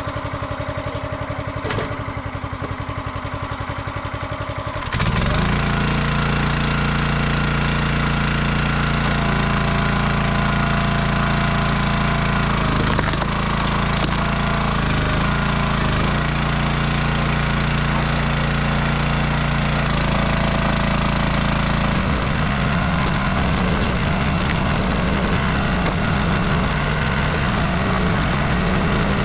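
Small gasoline engine of a 27-ton Dirty Hands Tools log splitter running steadily, driving the hydraulic pump; it gets louder about five seconds in and sounds rougher near the end.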